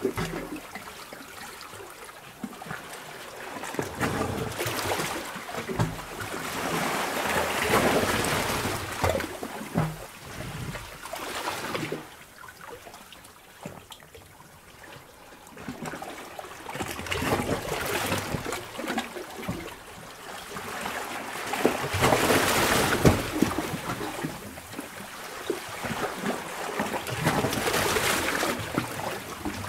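Seawater surging and sloshing in a sea cave, with splashing and trickling that swell up and die back every few seconds as the waves come in and drain away.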